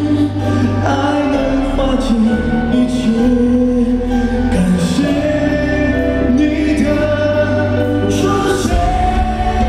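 Male singer singing a slow pop song live into a handheld microphone over band backing, amplified through an arena sound system, with long held notes.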